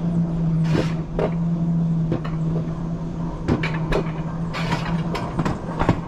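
Alpine coaster sled running along its steel rail track: a steady hum with irregular sharp clacks and rattles from the sled on the rails.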